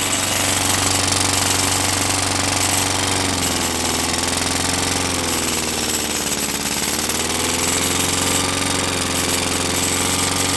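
Lawn mower engine running on a homemade fuel-vapor carburetor, a steady rapid rattling run. A little over a third of the way in its speed sags for a few seconds and then picks back up.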